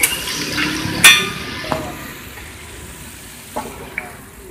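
Oil sizzling on a large flat street-food griddle (tawa), with a loud ringing metal clank about a second in as a steel utensil strikes the griddle. The sizzle dies down afterwards, and a couple of lighter knocks come near the end.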